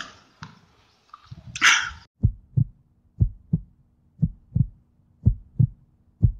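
Heartbeat sound effect: paired low thumps, about one pair a second, starting about two seconds in. Before it, a brief stretch of faint outdoor background with a short rushing sound.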